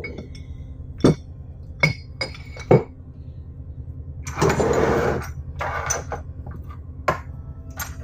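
Steel Parker hydraulic hose fittings being picked up and set down on a wooden desk: several sharp metal clinks and knocks, with a longer scrape about halfway through as they are moved across the surface, over a steady low hum.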